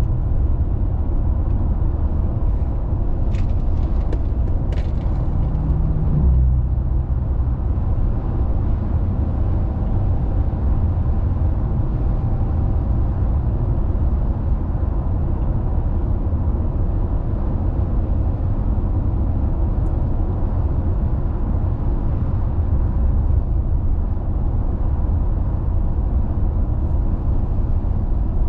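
Car driving along the road: a steady low rumble of tyres and engine, with a few faint clicks about three to five seconds in.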